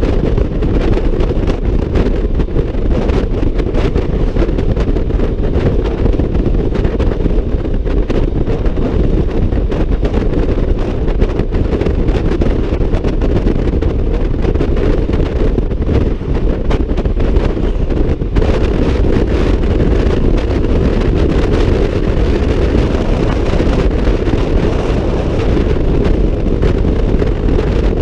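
Steady wind rush buffeting the microphone of a Honda ADV 150 scooter riding at road speed, with road and vehicle noise beneath it.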